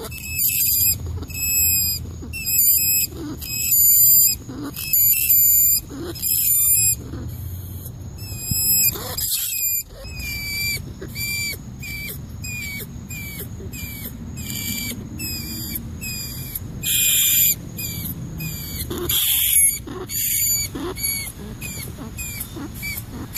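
Rat squeaking: a long series of short, high-pitched squeaks repeating one to three times a second, with a few louder, rougher squeaks near the end.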